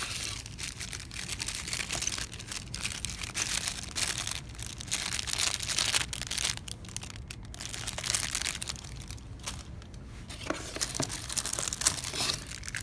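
Packaging being handled and unwrapped: continuous rustling and crinkling with small crackles and ticks.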